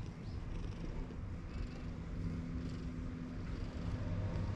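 White cat purring as its head is stroked, with a steady low hum underneath.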